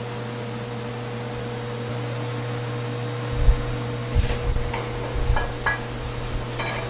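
Steady hum of a kitchen fan or ventilation unit, with a few short knocks and clicks of kitchen work starting about halfway through.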